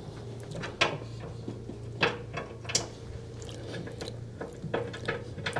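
Scattered light metallic clicks and knocks, irregularly spaced, as small metal parts are fitted by hand into the brake assembly under a Speed Queen washer's transmission. A low steady hum runs underneath.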